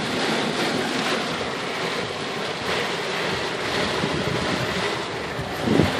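Storm wind and heavy rain: a steady, even rushing noise.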